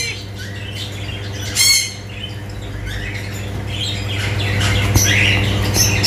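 Caged aviary birds calling. One loud, harsh squawk comes a little under two seconds in, and busier high chirping builds toward the end, over a steady low hum.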